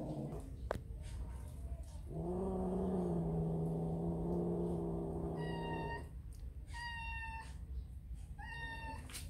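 Cats in a standoff: a long, low, drawn-out yowl of about four seconds, a warning cry, then three short high-pitched meows spaced about a second and a half apart.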